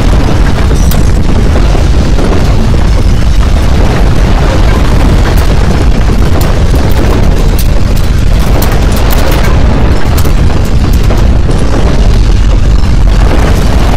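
Loud, continuous deep rumble with crackling: a simulated earthquake shaking sound.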